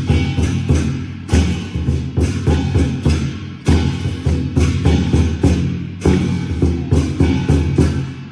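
Loud music driven by percussion: a steady beat of sharp drum and clapper-like hits over a sustained low tone.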